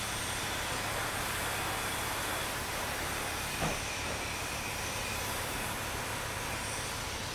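Steady hiss of a pressure-washer wand spraying water onto a car's hood, with one brief soft knock about halfway through.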